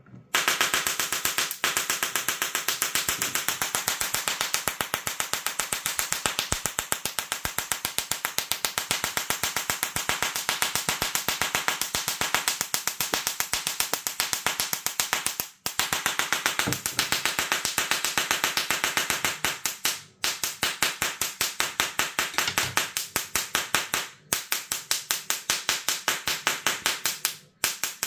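Shkalacar plasma-speaker Tesla coil discharging from its needle: a rapid, evenly spaced crackling pulse train that cuts out briefly four times.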